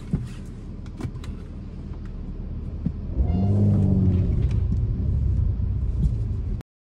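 Low, steady rumble of a motor vehicle, swelling louder about three seconds in, then cutting off abruptly near the end.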